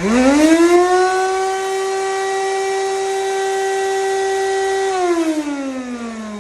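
Ridgid 18 V cordless vacuum's motor starting up with a whine that climbs quickly to a steady high pitch, holds for about five seconds, then winds down in falling pitch after it is switched off. It runs with its filter off, and the loud whine is one the owner says it has developed over time; the impeller looked unbent to him.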